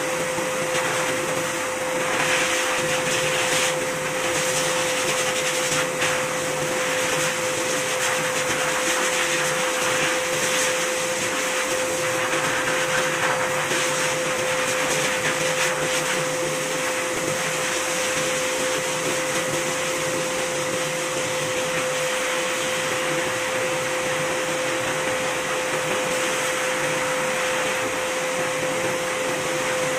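Motor of a pet grooming machine running steadily, air rushing through its corrugated hose and nozzle over the cat's coat, with a steady high whine.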